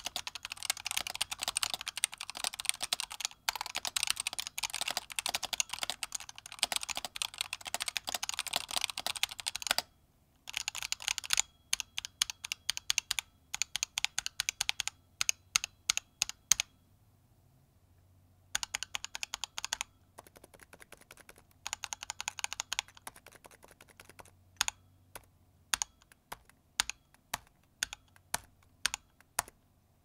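Typing on a Razer Huntsman tenkeyless keyboard with linear optical switches. The first ten seconds or so are fast, continuous typing. After that come runs of separate key presses, broken by short pauses and one brief burst of faster typing.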